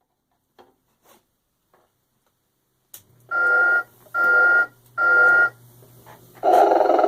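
1995 Telco Motion-ettes Sleeping Snoring Santa Claus animated figure switching on with a click and a low motor hum, then giving three short whistling tones under a second apart. Near the end comes a longer, buzzy electronic snore.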